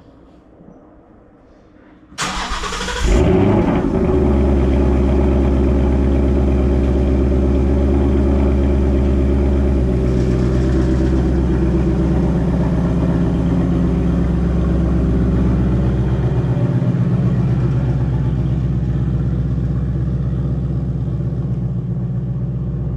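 Ford Mustang engine cranked on the starter about two seconds in, catching with a brief flare of revs, then idling steadily.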